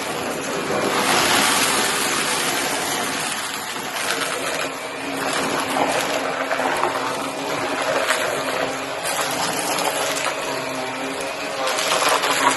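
Shark vacuum cleaner running and sucking up bits of cardboard: a steady motor hum under a rushing suction noise that swells and fades every couple of seconds.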